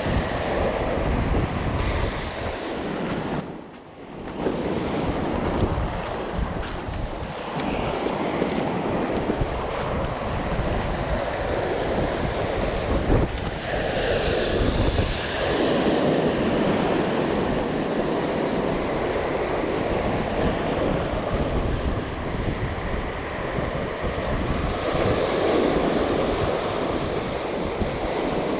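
Small sea waves breaking and washing up a pebble beach, the wash swelling and fading every few seconds, with wind rumbling on the microphone. The sound dips briefly about four seconds in.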